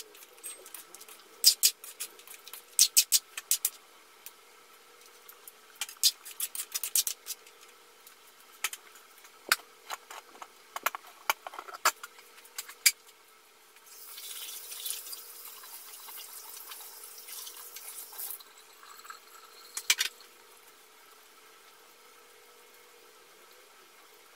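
A metal spoon clinking and scraping against an aluminium pan of stew as it is stirred: a scattered run of sharp taps over the first dozen seconds. About 14 seconds in comes a steady hiss lasting some four seconds, then two last clicks, and only a faint low hum remains.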